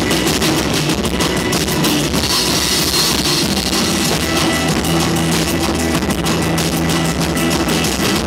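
Live rock band playing a loud, drum-heavy passage: drum kit and hand drums beating a dense, fast rhythm under held low notes.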